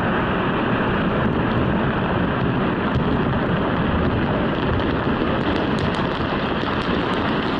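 Steady, loud rumble of a mountainside blast and the rock mass coming down, with a few faint ticks near the end.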